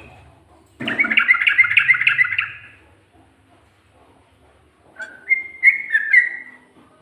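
Yellow-vented bulbul (trucuk) singing: a rapid run of chirping notes lasting about two seconds, then after a pause a short phrase of several clear whistled notes.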